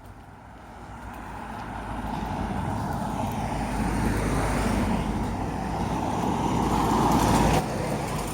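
A motor vehicle driving past on the road, its rumble and tyre noise growing louder over several seconds and then dropping away suddenly near the end.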